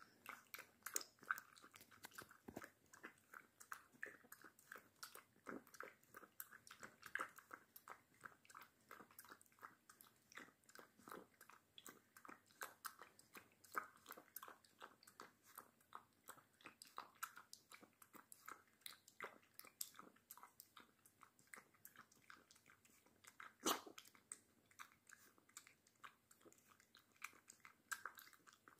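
An American Staffordshire Terrier puppy lapping milk from a plastic bowl: soft, quick wet licking clicks, a few a second, with one louder slurp about three-quarters of the way through.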